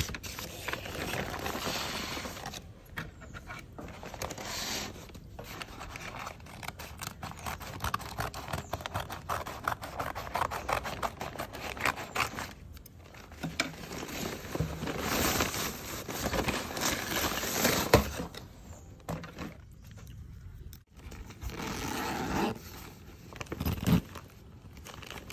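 Rustling, scraping and tearing of a stationery kit's packaging being handled and opened by hand, with scattered clicks, brief pauses and a sharp knock about three quarters of the way through.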